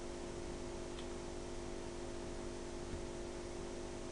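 Steady electrical hum of several low tones over a background hiss, with one faint click about a second in.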